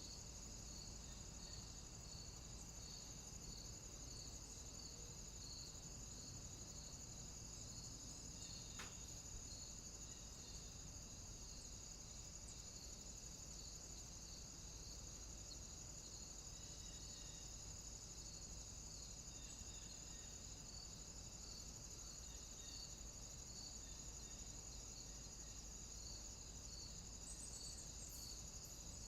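Chorus of crickets: a steady high trill with an evenly repeating chirp pulsing beneath it.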